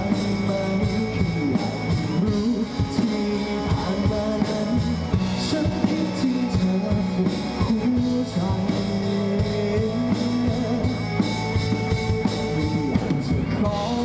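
Live rock band playing: a male vocalist singing into a handheld microphone over electric bass and drum kit.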